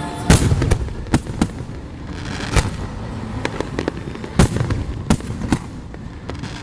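Aerial fireworks bursting overhead: a string of about eight sharp bangs at irregular intervals, with a patch of crackling about two seconds in.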